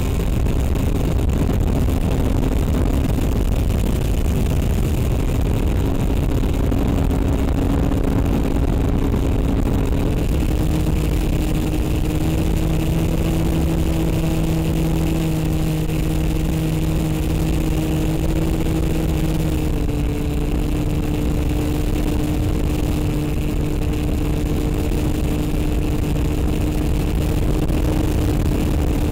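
A small electric FPV aircraft's motor and propeller in flight, heard from on board as a steady drone over heavy wind rumble. Its pitch shifts in small steps about ten and twenty seconds in.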